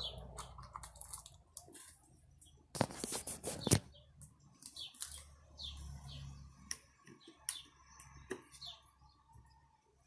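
Scattered clicks and knocks from a hand working the control panel and knob of a Mueller Energy 8 kg washing machine as it is switched on, loudest in a short cluster about three seconds in. Faint short bird chirps come and go.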